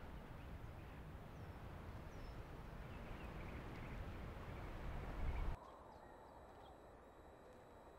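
Outdoor ambience: wind rumbling on the microphone, with a few short, faint bird chirps in the first couple of seconds. The rumble builds and then cuts off abruptly about five and a half seconds in, leaving a quieter background with a faint steady hum.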